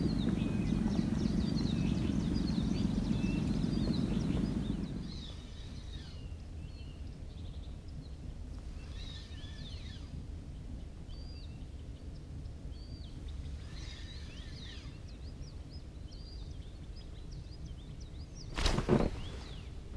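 Small birds chirping and twittering over faint outdoor background noise. A low steady rumble runs through the first five seconds, and a sudden loud noise about a second long comes near the end.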